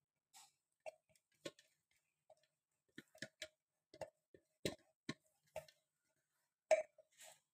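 A plastic spatula scraping and tapping inside a clear food-chopper jar to get out the ground nugget mixture: a string of short, irregular knocks and scrapes, the loudest one near the end.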